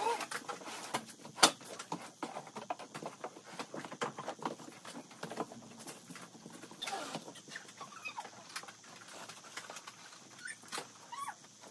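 Cardboard box being folded shut and handled among clothes: a run of rustles, crinkles and taps, with one sharp knock about a second and a half in and a few short squeaks later on.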